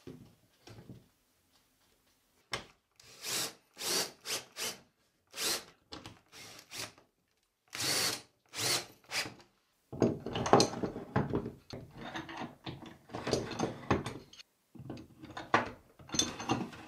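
An 18 V cordless drill-driver driving screws through a small wooden holder into an OSB wall in a string of short bursts. From about ten seconds in comes louder, busier clattering of steel bar clamps being hung on the holder.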